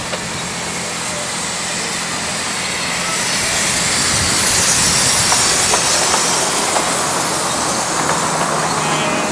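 A 7.25-inch gauge miniature steam locomotive passing close by with a steady hiss of steam, growing louder as it comes past, then its passenger carriages rolling by on the track with a few light clicks.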